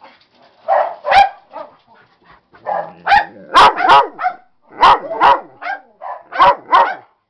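A large dog barking and yowling in a string of about a dozen short calls, each bending in pitch, coming in quick runs of two or three.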